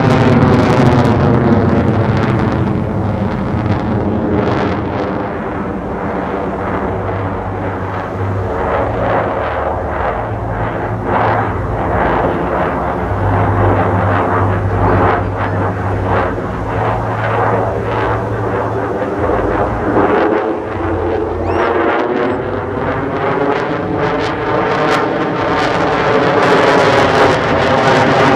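Military fighter jet flying a demonstration pass: loud, continuous jet engine noise with a sweeping, shifting tone as the aircraft moves, and crackle running through it.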